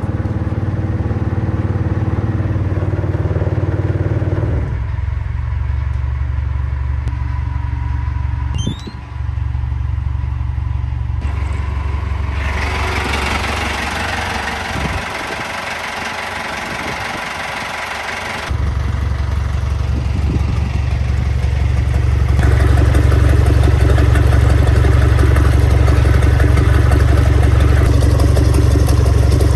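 Yanmar 4JH3-DTZAY four-cylinder turbo diesel marine engine idling steadily. About halfway through, a stretch of sharper mechanical clatter and hiss is heard. From about two-thirds in, the deeper exhaust rumble comes with cooling water splashing from the exhaust outlet.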